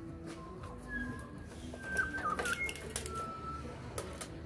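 Birds calling in the background: a few short whistled notes, some sliding in pitch, with a few light clicks of tools being handled.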